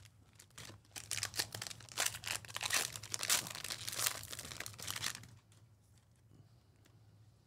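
Plastic wrapper of a trading-card pack being torn open and crumpled, a dense crackling that runs for about four seconds and then drops to a faint rustle.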